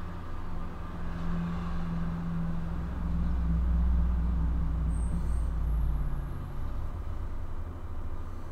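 Low rumble of a passing vehicle, swelling to its loudest about four seconds in, its hum dropping slightly in pitch, then fading.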